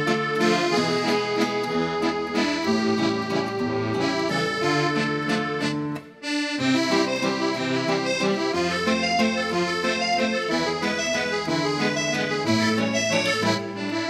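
Background music with sustained chords that change every second or two; it drops out briefly about six seconds in.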